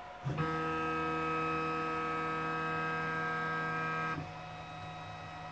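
Hobby CNC machine's stepper motors whining steadily as the axis drives the pen across the paper. The whine stops abruptly about four seconds in, leaving a fainter steady hum.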